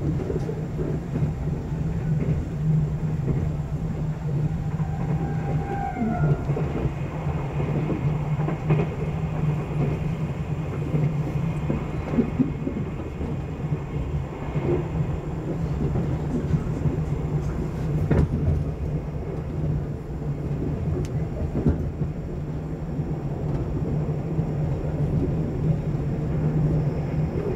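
Running noise inside a sleeper-train passenger coach moving at speed: a steady low rumble from the wheels on the rails, with a few sharp clicks.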